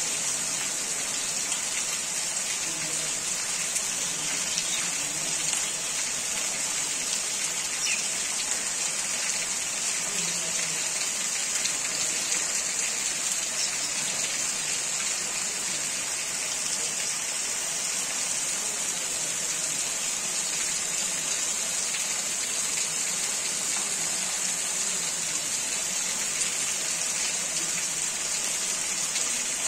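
Steady rain falling, an even, unbroken wash of many small drops with no thunder.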